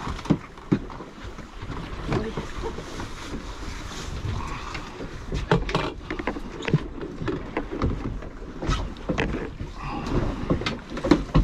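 Wind on the microphone and sea water slapping against a small boat's hull, with scattered sharp knocks and clatters from handling tackle in the boat.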